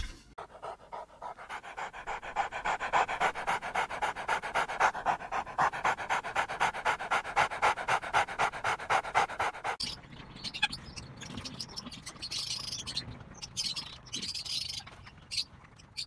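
Small dog panting fast and evenly, about four to five breaths a second. The panting stops about ten seconds in, leaving quieter short scratchy noises.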